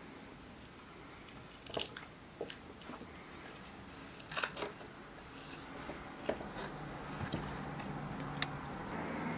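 A hung picture frame being handled against the wall, giving a handful of short, soft clicks and scrapes spread over several seconds.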